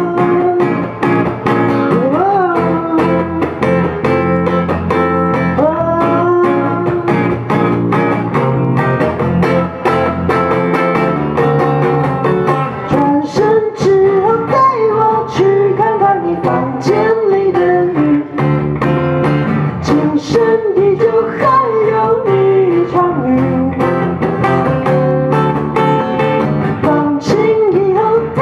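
Live song: a voice singing long, bending notes over plucked guitar accompaniment.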